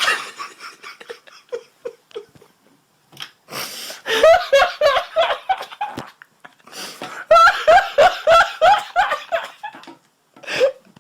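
A high-pitched female anime voice laughing: a few short giggles, then two long bouts of quick, rhythmic laughter.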